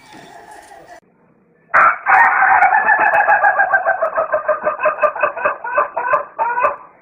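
Rooster crowing: one long, drawn-out crow starting about two seconds in and lasting about five seconds, breaking into a quick wavering warble toward the end.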